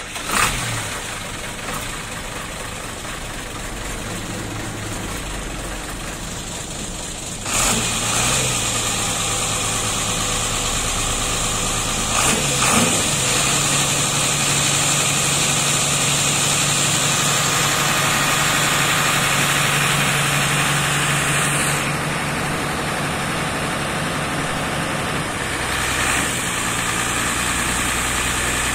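Large diesel bus engine idling, stepping up in level about seven seconds in, with brief rises around twelve seconds in, and settling lower again past twenty seconds.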